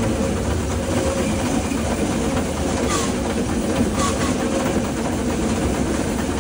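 Steam train running along the track: a steady running rumble, with the wheels clicking over rail joints a few times.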